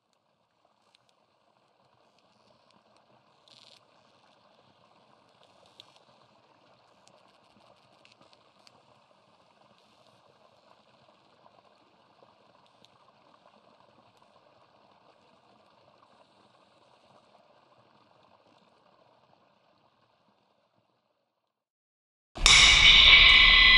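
A very faint, even crackle with scattered ticks, then about 22 seconds in a loud sustained chord of several high held tones over a low hum starts suddenly: the opening of a live electronic music piece.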